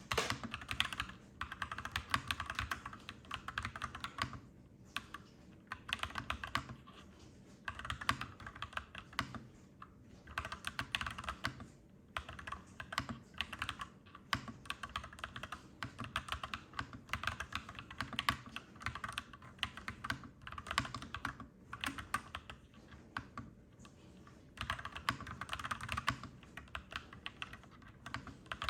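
Clacky typing on a mechanical keyboard: quick runs of keystrokes broken by short pauses every few seconds.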